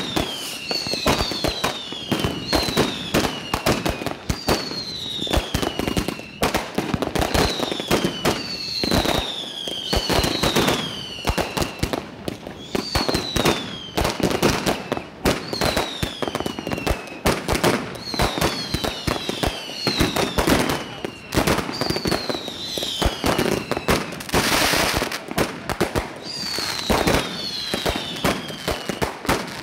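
Mascletà-style firework barrage: a dense, irregular string of sharp firecracker bangs, with whistling fireworks giving a short falling whistle every second or two. A brief hissing rush comes a little past three-quarters of the way through.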